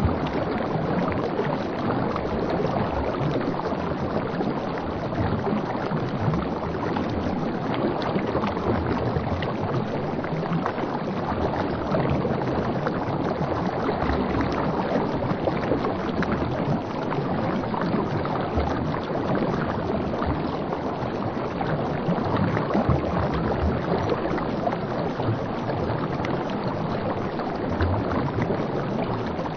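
Steady rush of river water lapping and splashing against a coracle as it is paddled along.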